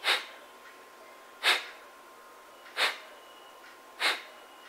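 Four sharp, forceful exhalations through the nose, evenly spaced about one every second and a half: Kapalbhati (skull-shining) pranayama breathing at the beginner's slow pace.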